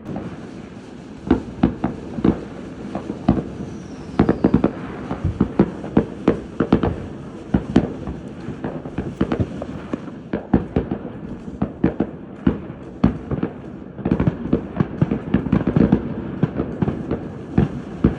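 Fireworks going off in quick succession: many sharp bangs and crackles overlapping, over a steady rumble, with the densest volleys about a quarter of the way in and again near the end.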